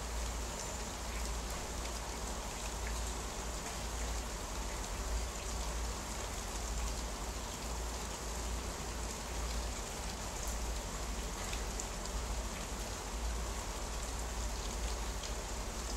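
Steady rain falling: an even hiss with scattered faint drop ticks, over a low rumble.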